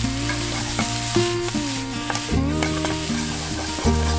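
Rice frying and sizzling in a frying pan over a wood fire, stirred with tongs. Background music with held low bass notes and a sliding melody plays throughout.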